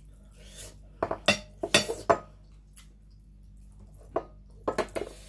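Plates clinking and knocking: a quick run of sharp clinks about a second in, then a few more near the end.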